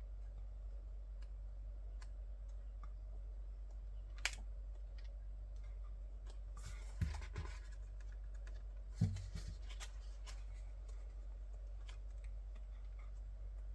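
Photobook pages and card being handled: scattered light clicks, a sharp tap about four seconds in, then two short stretches of paper rustling, each starting with a dull knock, around seven and nine seconds in, over a steady low hum.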